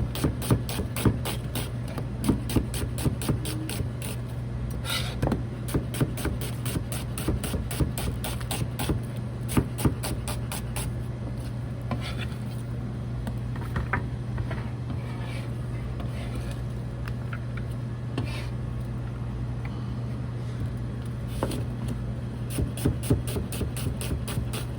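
Kitchen knife chopping vegetables on a cutting board: quick, even strokes in runs, sparser through the middle stretch and quick again near the end.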